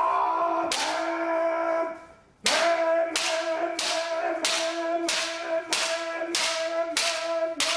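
Bamboo shinai clacking against shinai in a kendo kirikaeshi drill: one strike about a second in, then a quick even run of about nine left-right strikes. They sound over a long kiai shout held at one pitch, which breaks off for a breath about two seconds in.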